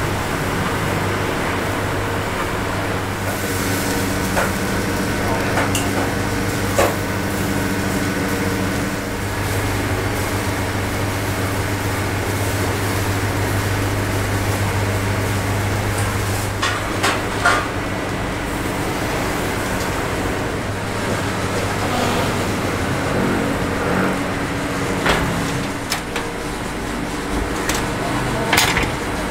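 Steady mechanical hum of a motorised charcoal chicken rotisserie turning its racks, with a few short metal clanks from the wire grill baskets and voices in the background.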